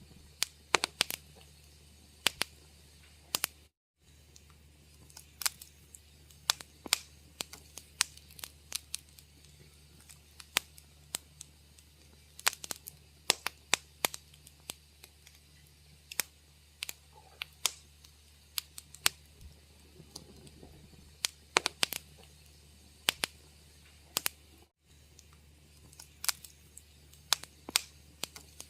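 Wood fire crackling in a fireplace: irregular sharp pops and snaps, some in quick clusters, over a steady low hum. The sound drops out completely twice, briefly.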